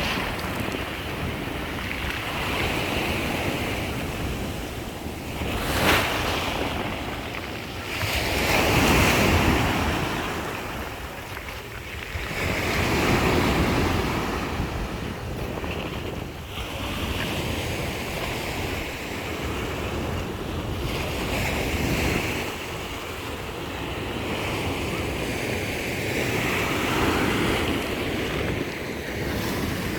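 Black Sea waves breaking on the shore, the surf swelling and washing back in surges every few seconds.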